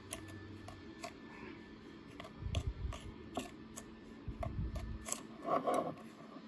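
Plastic measuring spoon stirring dry powder in a small glass bowl, scraping and clicking irregularly against the glass, with a couple of low bumps as the bowl is handled on the counter.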